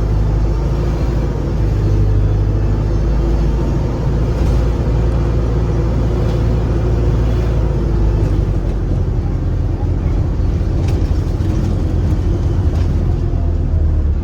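A bus engine pulling slowly up a hill under load: a steady low rumble with a hoover-like whine above it.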